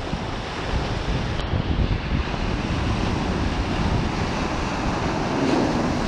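Ocean surf washing steadily, with wind buffeting the microphone in a low rumble.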